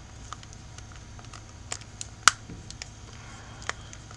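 Scattered light clicks and taps of small parts being handled, with one sharper click about two seconds in, over a low steady hum.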